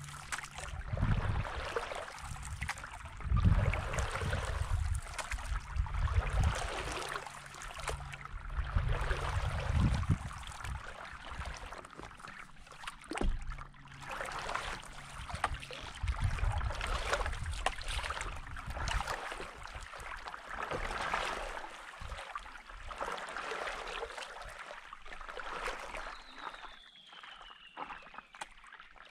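Stand-up paddleboard paddle strokes through calm water: splashing and gurgling that swell and fade every few seconds as the blade pulls through and lifts out, with low rumbles through the first two-thirds.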